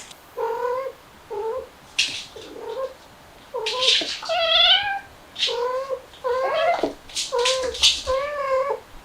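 A cat meowing over and over in short, pitched calls, about ten in a row, with sharp hissy bursts in between.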